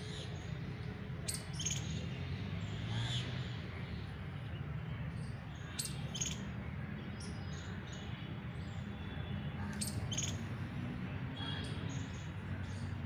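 Birds chirping in short, sharp calls every few seconds over a steady low rumble.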